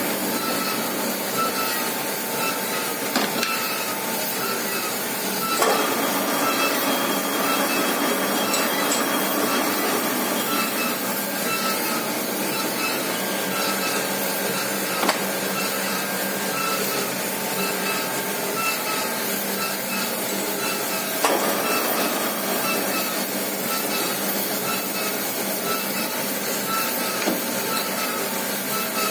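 Milling machine running: a steady mechanical noise with a faint tone that pulses over and over, and a few sharp clicks along the way.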